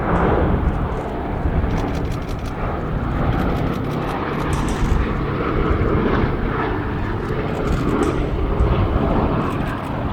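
Boeing B-17G Flying Fortress in flight, its four Wright Cyclone radial piston engines and propellers giving a steady, loud drone.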